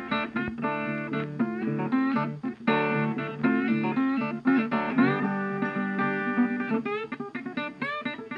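Background music: guitar, plucked and strummed, with a steady run of notes.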